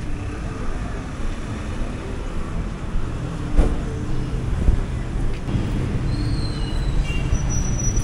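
Busy street traffic ambience: a steady low rumble of passing vehicles, with two sharp knocks about a second apart midway and faint short high-pitched chirps near the end.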